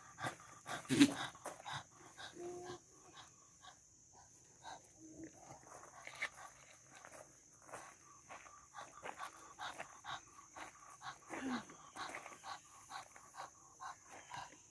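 Goats feeding from tubs of carrots and hay: scattered irregular crunching and rustling clicks, with hooves shuffling on gravel. A short, louder sound comes about a second in.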